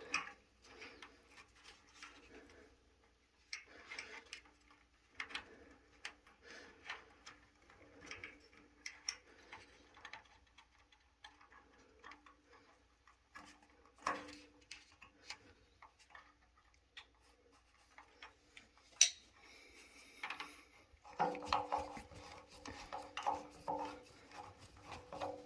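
Faint, irregular clicks and scraping of a wire being fastened to the bottom terminal of an electric water heater's thermostat, with small metal tools and hardware handled in a small room.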